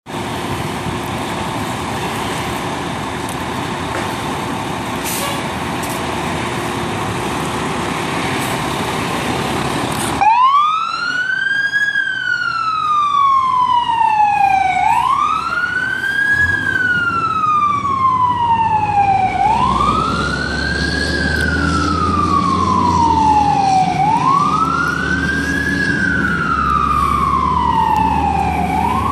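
A fire engine's siren starts about ten seconds in, after steady background noise, and wails over and over. Each cycle rises quickly and falls slowly, about every four and a half seconds, with the truck's engine rumbling underneath as it pulls away.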